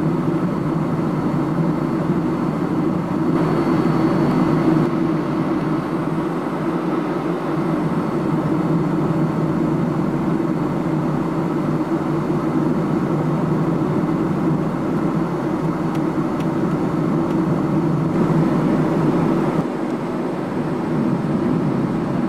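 Steady cabin noise of a McDonnell Douglas MD-11 airliner in cruise: a constant rush of airflow and engine noise. It drops slightly a little before the end.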